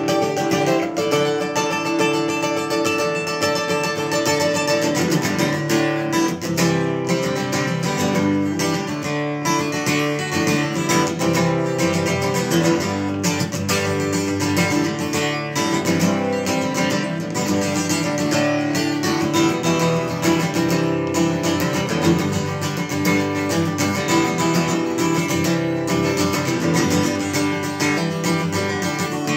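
Solo acoustic guitar strummed in a steady rhythm, playing an instrumental tune.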